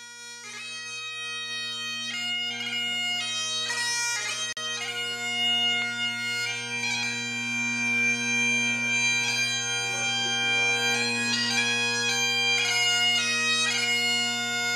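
Great Highland bagpipe playing a tune: a steady drone underneath with the chanter melody moving from note to note above it, swelling in over the first second.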